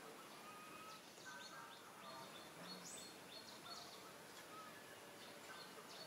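Faint background ambience with birds chirping: scattered short chirps and brief whistled notes.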